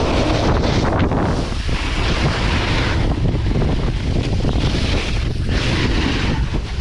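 Wind buffeting a pole-mounted action camera's microphone as a snowboard slides over packed snow. The hiss of the board on the snow swells and fades with the turns, over a steady deep rumble.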